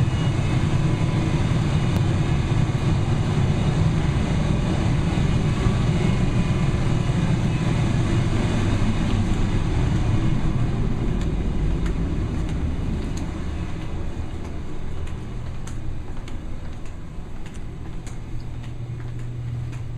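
Laundry-room washers and dryers running: a steady low rumble and hum that fades over the last several seconds.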